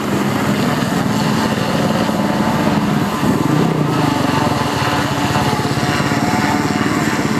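Sidecar motocross outfit's engine running steadily, a fast, even firing note whose pitch wavers a little.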